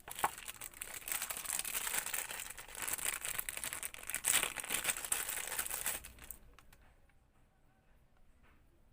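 Packaging crinkling and rustling as an item is handled and unwrapped. The crackling stops suddenly about six seconds in, followed by a few faint clicks.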